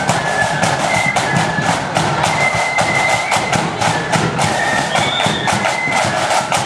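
Marching flute band playing: flutes carry a high melody over rapid snare drum strokes and a booming bass drum.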